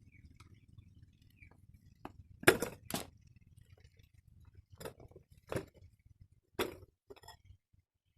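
Scattered sharp clinks and knocks of hard objects being handled, about six or seven over several seconds, the loudest two close together a few seconds in, over a faint low hum.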